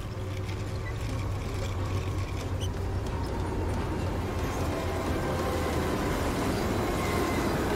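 Passenger train approaching along the track, a low rumble that grows steadily louder as it draws near and passes.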